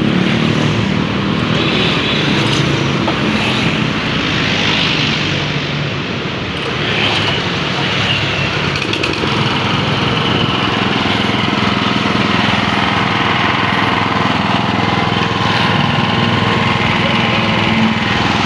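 Honda GX200 single-cylinder four-stroke engine of a Quick Capung walking tractor running steadily.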